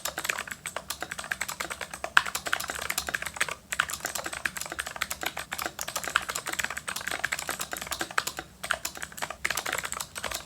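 Fast typing on a DIY mechanical keyboard with clicky knock-off Cherry MX Blue switches: a dense run of sharp key clicks, broken by brief pauses a little past a third of the way in and again about four fifths through.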